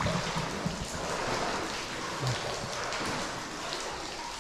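Water dripping and pattering steadily inside a rock-cut tunnel, with a couple of soft low knocks.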